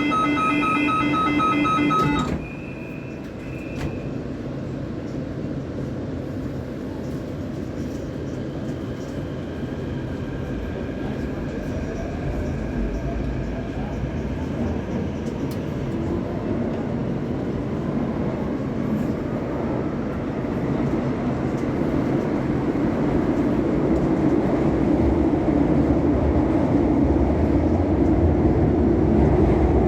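CAF Série 500 Fase II metro train: a steady electronic tone cuts off about two seconds in, then the train pulls away and accelerates. Its running noise grows steadily louder, with a faint rising whine.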